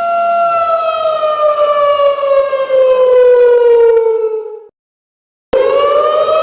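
Siren wailing: a steady high tone that slides slowly down in pitch over about four seconds and fades out. It cuts to silence for under a second, then starts again and rises back up.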